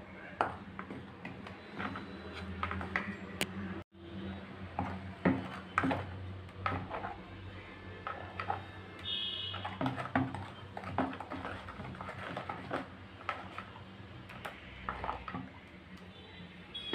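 Steel spoon stirring flour and then thick batter in a plastic bowl, with irregular clicks and scrapes of the spoon against the bowl. There is a brief dropout about four seconds in.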